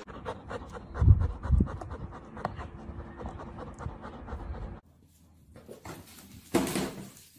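A dog panting quickly, several breaths a second, with two low thumps about a second in. The panting stops about five seconds in, and near the end there is a short noisy burst.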